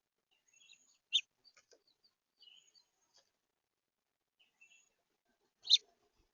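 House finches calling: scattered short high chirps, with two louder, sharper calls about a second in and near the end.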